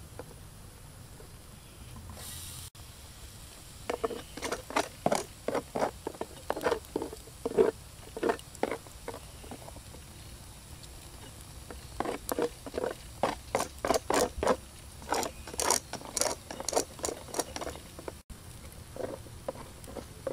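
Chicken wings grilling over glowing charcoal on a wire grill: irregular crackles and pops, in two runs of several seconds each.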